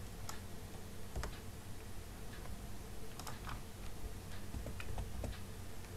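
Irregular clicks of a computer keyboard and mouse, roughly one or two a second, over a faint steady hum.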